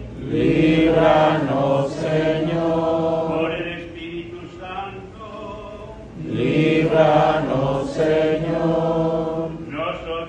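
Sung litany in Spanish, chanted call-and-response: a cantor chants short invocations and many voices answer together. Two loud sung responses of about three seconds each come just after the start and about six seconds in, with quieter solo chanting between them and again near the end.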